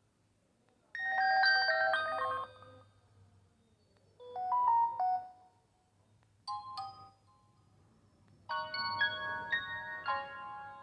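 Samsung GT-E3300L mobile phone playing short polyphonic ringtone melodies: a phrase about a second in, another at about four seconds, a brief one at about six and a half seconds, and a longer one starting near eight and a half seconds.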